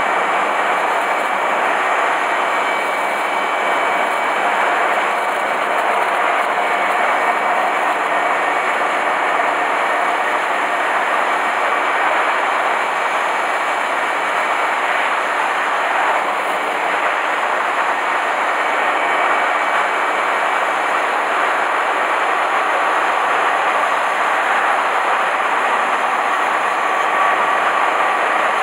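Honda Hornet 250 motorcycle engine running steadily while riding, under a constant rush of wind and road noise.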